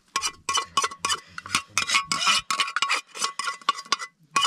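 Metal tongs clinking again and again against a metal cooking pan as cooked chicken pieces are lifted out, about three or four sharp clinks a second, each with a brief metallic ring.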